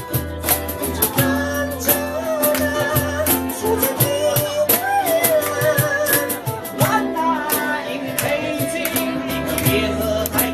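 Ukulele band playing a song, with a singer's melody over strummed plucked strings, a steady beat and bass.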